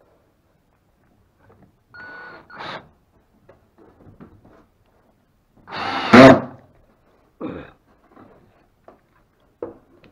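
Cordless drill-driver running in short bursts, driving screws through a plywood deck piece, the loudest burst about six seconds in.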